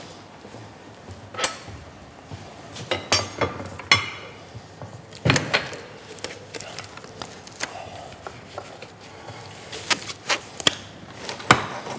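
Irregular knocks and clatter of dishes and utensils being handled on a kitchen counter, about a dozen sharp taps spread unevenly.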